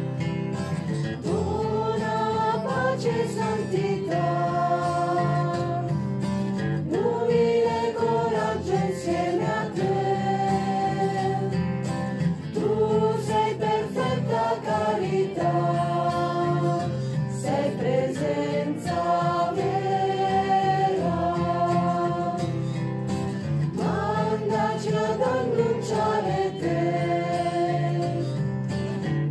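Music: a choir singing slow, held phrases over a soft instrumental accompaniment.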